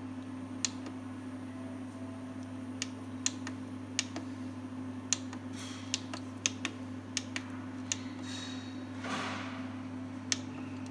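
Small push-buttons on an LED light bar's control panel clicking as they are pressed one at a time, about a dozen sharp clicks at uneven intervals, over a steady low hum. A brief soft rustle comes about nine seconds in.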